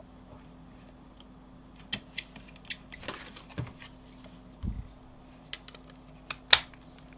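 Scattered small clicks and taps of a mobile phone and small tools being handled on a work surface, with one dull knock midway and a sharper, louder click near the end, over a low steady hum.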